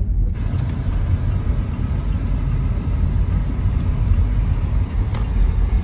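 A car driving, a steady low road and engine rumble.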